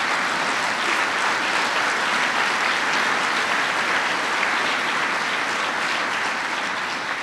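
Audience applauding, a steady dense clapping that eases off a little near the end.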